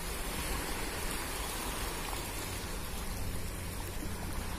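Steady rushing noise of small waves lapping over shallow rocks at the sea's edge, with a low rumble of wind on the microphone.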